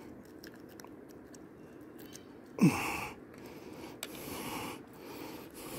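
A man's short falling grunt about two and a half seconds in, trailing into a breathy hiss, with breathing and hand-handling noise while a largemouth bass is being unhooked.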